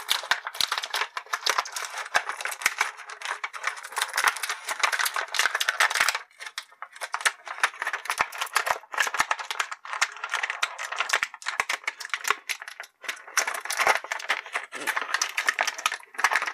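Thin clear plastic bag crinkling as hands work an action figure out of it: a dense run of small crackles, with brief lulls about six and a half and thirteen seconds in.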